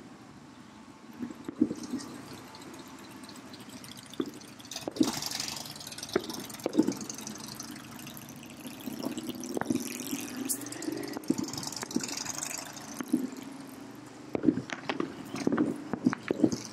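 Distant aerial fireworks heard from about two miles away: irregular pops and bangs of shells bursting, with a denser flurry near the end, over a steady background rumble.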